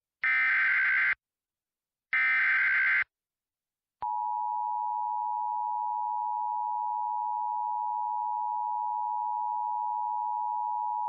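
Emergency Alert System SAME header: the last two of three one-second bursts of buzzing digital data tones. About four seconds in, the steady two-tone EAS attention signal starts and holds, announcing that an alert message follows.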